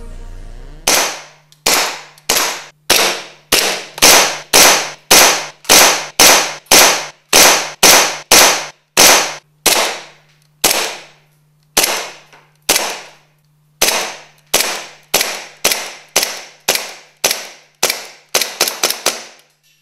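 Kimber Warrior 08 gas blowback airsoft pistol, a clone of the Tokyo Marui Hi-Capa, firing a magazine of BBs shot by shot: about thirty sharp cracks, each with the slide blowing back, roughly two a second, quickening into a rapid string near the end.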